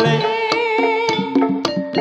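Javanese Banyumasan gamelan music for lengger: a woman singer holds one long note through the first half, over kendang drum strokes and pitched notes from bronze kettle gongs. Several sharp drum strokes fall in the second half.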